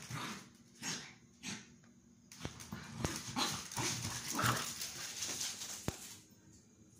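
Two small dogs play-fighting on a tile floor: scuffling and short dog vocal sounds, busiest in the middle few seconds, with a few sharp clicks.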